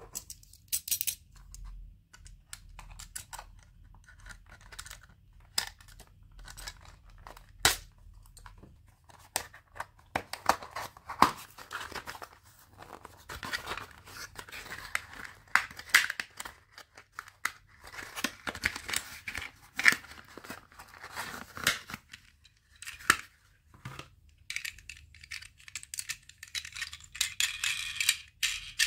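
Toy packaging being torn open and handled: tearing and crinkling of wrappers, with scattered sharp clicks and taps, and a steadier high rustle near the end.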